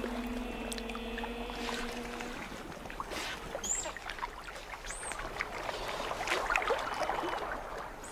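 Water splashing and churning as giant otters swim and thrash about in a lake while harassing a caiman. A held chord of background music stops about two seconds in.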